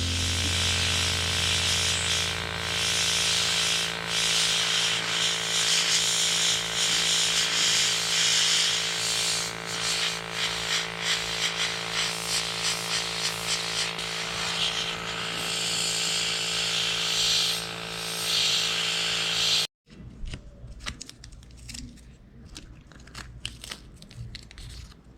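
A small motor running steadily with a hiss, cutting off abruptly about twenty seconds in. After it come quieter scattered clicks and handling sounds.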